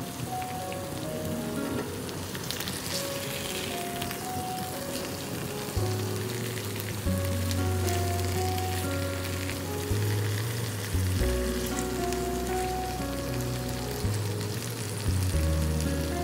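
Chicken pieces sizzling steadily as they shallow-fry in hot oil in a pan. Background music plays over it, a slow tune with low bass notes that come in about six seconds in.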